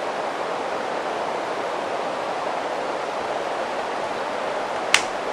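Steady hiss of electronic noise from a cheap camcorder's faulty microphone, with one sharp click near the end.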